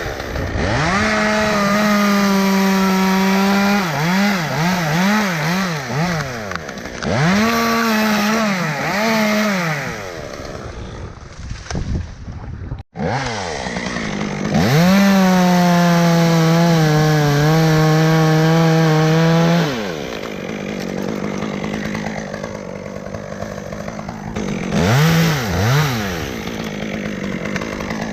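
Two-stroke chainsaw revving to full throttle in cuts, blipping the throttle and dropping back to idle between them, with a longer cut in the middle whose pitch sags slightly under load. It then idles, with one more short rev near the end.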